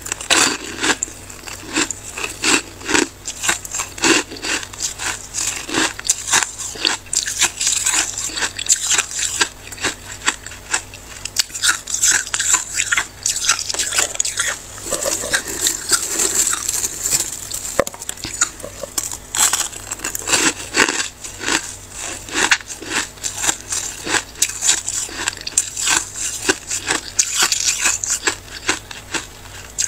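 Someone chewing mouthfuls of freezer frost close to the microphone: a dense, irregular run of crisp icy crunches.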